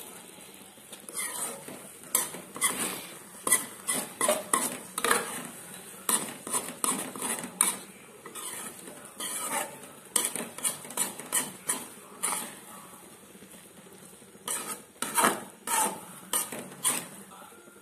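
Steel spoon scraping and clinking against a metal kadai while noodles are stirred and tossed, in quick bursts of strokes with a short pause about three-quarters of the way through.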